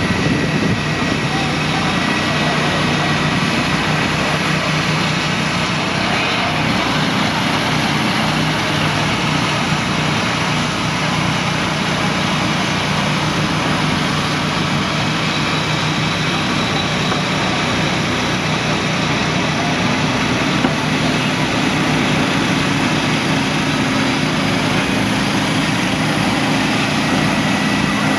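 Gasoline engine of a Norwood Frontier OS-27 manual bandsaw mill running steadily under load while its band blade cuts lengthwise through a log as the head is pushed along the track.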